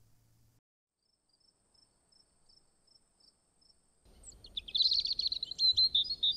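Faint crickets chirping in a steady, even rhythm, then from about four seconds in a bird sings in quick, louder chirping notes over a soft background hiss. Together they mark the change from night to morning.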